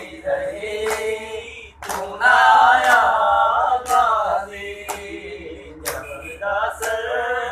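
Male voices singing a noha, a Shia lament, unaccompanied, with a sharp beat about once a second keeping time. The singing eases off for about two seconds in the middle, then picks up again.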